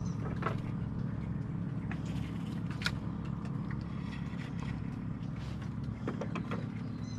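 Steady low engine hum, with a few light clicks and knocks as the fishing rods and spinning reel are handled.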